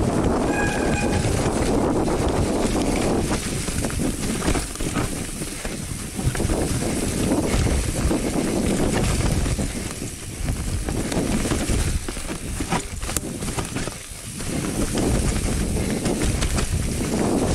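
Mountain bike descending a wet, leaf-covered trail: wind rushing over the microphone, tyres rolling over soggy leaves and the bike rattling over bumps, easing off briefly twice. A short squeal sounds just after the start.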